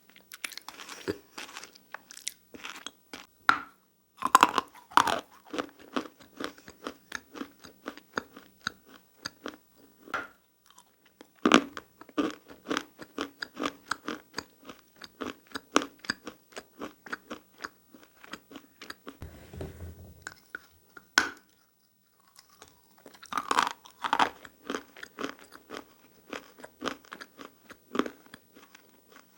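Close-miked biting and chewing of dry, powdery clay and plaster chunks: loud crunching bites followed by fast rapid crunchy chewing, with a short pause roughly two-thirds of the way in.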